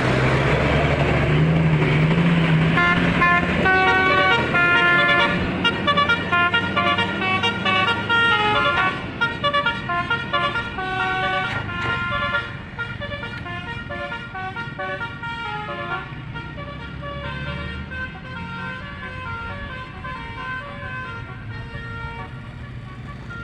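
Bus telolet horn, a multi-tone musical air horn, playing a quick tune of short notes at changing pitches over the running bus engine. The notes begin a few seconds in and get quieter about halfway through.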